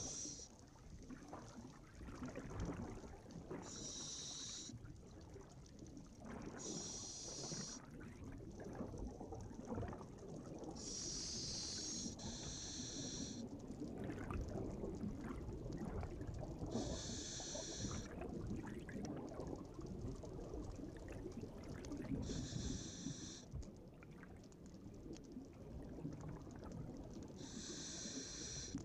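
Scuba diver breathing through a regulator, recorded underwater: a short hissing breath about every three to five seconds, over a steady low rumble of water and bubbles.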